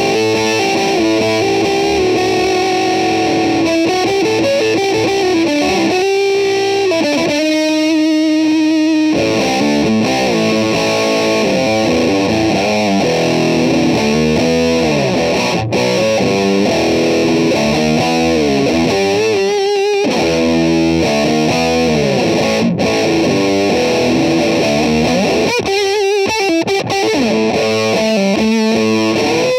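Electric guitar played through an ALH Battersea Distortion pedal, a heavily saturated tone that sits between distortion and fuzz. It plays sustained lead notes with bends and wide vibrato.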